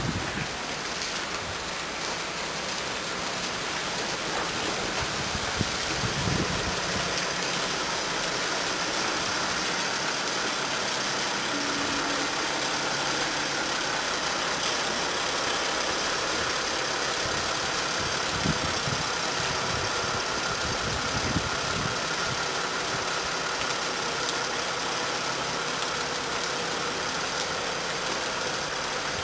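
Mercedes-Benz Sprinter tractor unit's engine running steadily at low revs as it slowly moves a semi-trailer, with a few faint low knocks.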